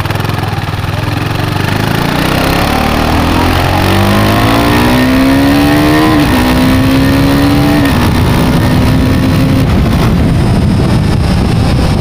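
KTM 390 Adventure's single-cylinder engine accelerating under load. Its pitch climbs for a few seconds, drops suddenly once about six seconds in at a clutchless quick-shifter upshift, climbs again and then levels off.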